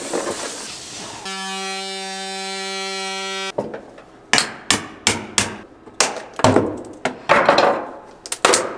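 A brief hiss, then a steady electronic tone held for about two seconds, then a run of sharp clicks, knocks and scraping as the casing of a 12V 400Ah LiFePO4 battery is handled and taken apart.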